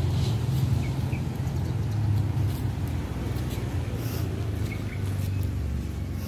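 Steady low rumble, with a few faint short bird chirps about a second in and again near the end.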